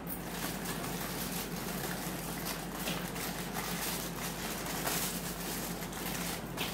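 Aluminium foil crinkling and rustling as it is lifted and rolled around a log of soft dough, over a steady hiss and a low hum.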